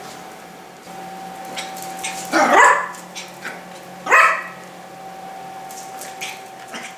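Miniature pinscher puppy barking twice, a longer bark about two and a half seconds in and a short one about four seconds in, each dropping in pitch.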